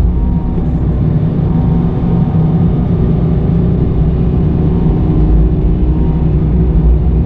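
Kobelco SK85 MSR excavator's diesel engine running steadily.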